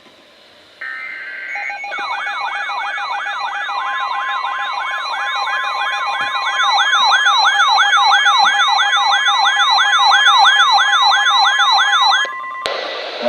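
Emergency alert sounding on a weather radio: a brief burst of data tones, then a siren-like alarm sweeping up and down about three times a second over a steady tone. It grows louder and cuts off suddenly near the end.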